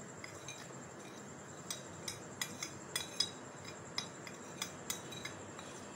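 Light clinks and taps of a metal spoon and small spice bowls against a mixing bowl as ground spices are tipped in: a dozen or so quick, irregular clinks starting a little under two seconds in, over a faint steady hiss.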